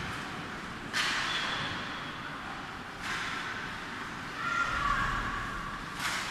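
Hockey skate blades and sticks scraping on rink ice, with three sudden sharp scrapes about one, three and six seconds in.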